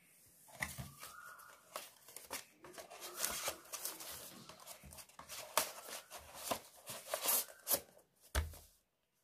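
Hands handling a cardboard box and a plastic courier bag: a dense run of crinkles, rustles and scrapes, with a dull knock about eight seconds in.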